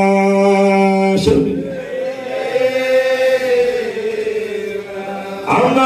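A man's voice chanting an Arabic devotional Mawlid song through a microphone, holding one long steady note. About a second in it breaks off and a softer, slowly wavering chant carries on, with the loud singing returning near the end.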